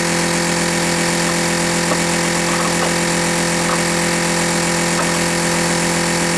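An engine or motor running steadily, a constant drone at one unchanging pitch.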